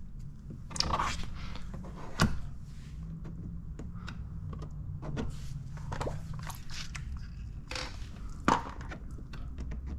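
Scattered light knocks, taps and rustles of hands positioning wet paint protection film along the bottom of a pickup truck's fender, over a steady low hum.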